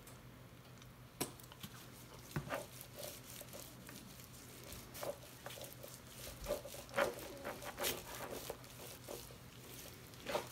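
Gloved hands smearing mustard over a raw rack of pork ribs: soft, irregular wet slaps and glove rustles, over a faint steady hum.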